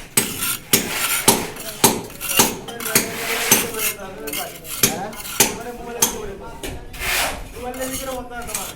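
A metal hand tool striking hard material over and over, about two sharp clinking knocks a second, with voices faintly underneath.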